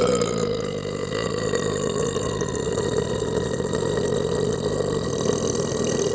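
A single long belch, held at a steady pitch without a break.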